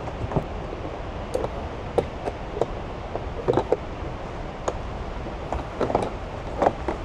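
Irregular light knocks and clacks, about a dozen spread unevenly, over a steady low rumble.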